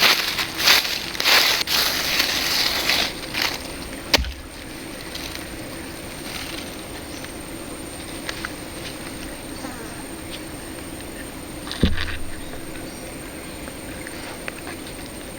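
Water splashing and sloshing in a shallow river for the first few seconds, then the steady sound of the flowing river with a sharp knock about four seconds in and another near the end.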